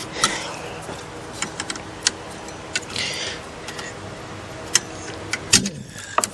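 Scattered sharp clicks and clinks of a car's plastic wiring-harness connectors and tools being handled while they are unplugged, about a dozen irregular snaps.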